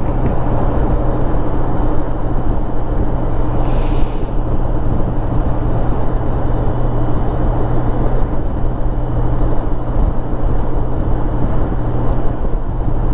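Touring motorcycle cruising at highway speed: a steady engine hum under wind and road noise, with a brief hiss about four seconds in.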